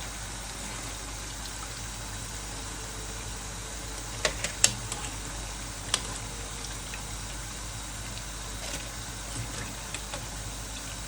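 Pakoras deep-frying in hot oil, a steady sizzle, with a few sharp clicks or pops about four and six seconds in.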